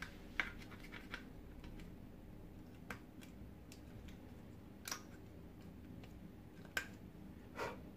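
Light clicks and taps of plastic parts of a vacuum cleaner floor head being handled during reassembly, about six scattered over the eight seconds, over a faint low hum.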